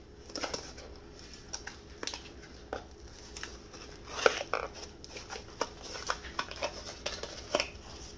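Small cardboard box being opened by hand: scattered taps, clicks and scrapes of the cardboard sliding and flexing, with light rustling of packaging. The loudest tap comes about four seconds in.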